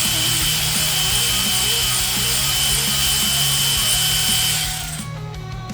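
Power tool running steadily for about five seconds, then stopping, as it undoes a bolt on the turbo setup; a thin high whine sits over the motor noise.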